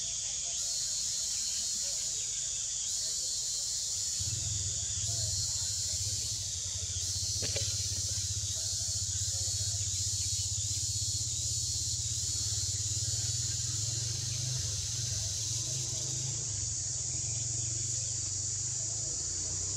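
Steady, high-pitched buzz of insects, with a faint regular pulsing, and a low steady hum joining about four seconds in.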